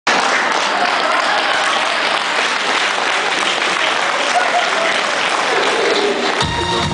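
Audience applauding steadily. Near the end a backing track with a bass beat comes in.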